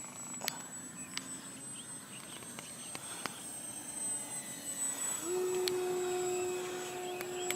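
Electric ducted fan RC jet in flight: a steady high-pitched whine, joined about five seconds in by a lower steady hum that rises briefly and then holds.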